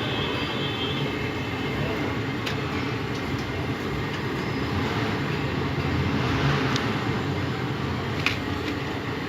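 Steady low background rumble, like traffic or machinery, with a couple of faint clicks.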